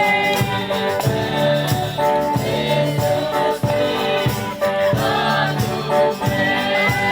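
Music with singing and a steady beat of percussion, gospel-like in style.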